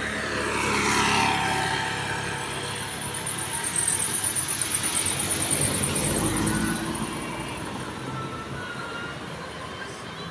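Road traffic: a motor vehicle passes with a falling whine over the first two seconds. Then a louder, pulsing engine sound runs for a few seconds and fades.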